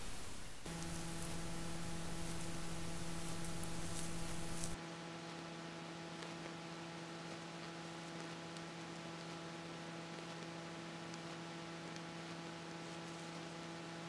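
A steady electrical hum made of several fixed pitches, over a faint hiss that drops away about five seconds in.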